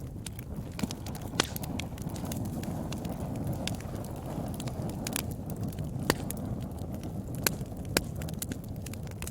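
Wood fire burning, a low steady rumble with irregular sharp crackles and pops; a few louder snaps stand out, one about a second and a half in and three more in the second half.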